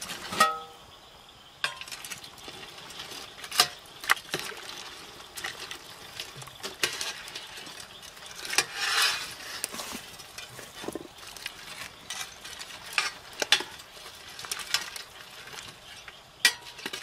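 Metal utensils clinking, knocking and scraping against a speckled enamel stockpot as a pot of boil is stirred, in scattered sharp clicks. A brief louder rushing noise comes about halfway through.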